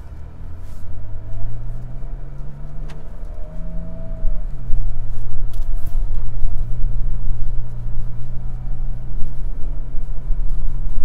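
Ford Ranger Raptor's twin-turbo V6 pulling away and accelerating, heard from inside the cab. Its pitch climbs for about four seconds, drops suddenly at an upshift, then holds steady and rises slowly again.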